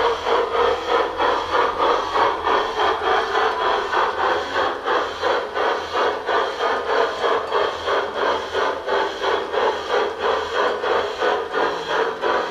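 G-scale LGB model steam train running, with a steady rhythmic chuffing of about two to three beats a second over the running noise of the wheels.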